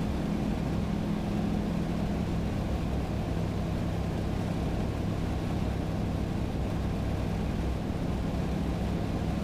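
Bushcat light-sport aircraft's engine and propeller droning steadily, heard inside the cockpit during a steep banked turn.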